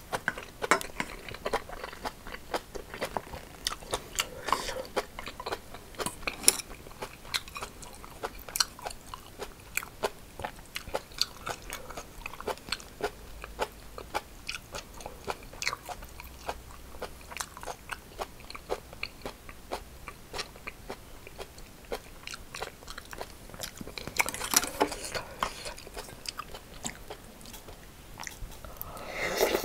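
Close-miked chewing with many small crisp crunches, the sound of eating rice mixed with crunchy seasoned cucumber. The crunching is irregular, with a denser flurry about three-quarters of the way through and again near the end.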